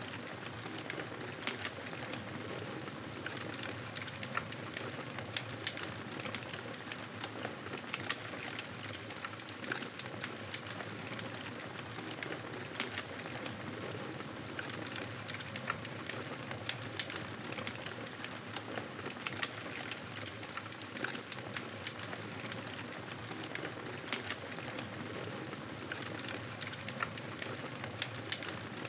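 Campfire crackling steadily: a soft hiss dotted with frequent small, sharp pops from the burning wood.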